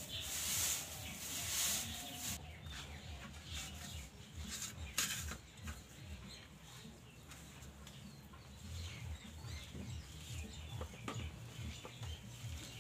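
Chickens clucking in the background. There is a rustle of handling near the start and a sharp click about five seconds in.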